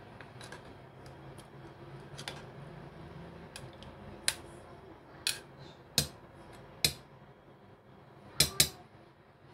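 A metal spoon clinking against the rim and side of an aluminium pressure cooker while stirring chicken curry. There are sharp single clinks about once a second in the second half, and the loudest is a quick pair near the end.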